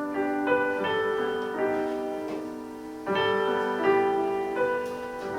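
Slow solo piano music: single notes and chords struck every half second to a second and left to ring, with a fuller, louder chord about three seconds in.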